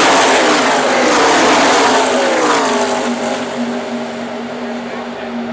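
A pack of NASCAR Truck Series race trucks' V8 engines at full throttle going past, their pitch dropping as they pass and the sound easing off after about three seconds.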